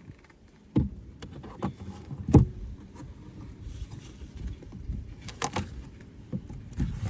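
Wooden Layens hive frames knocking and scraping against the hive body as they are handled and lifted: several sharp wooden knocks, the loudest about two and a half seconds in, over a low rumble of wind on the microphone.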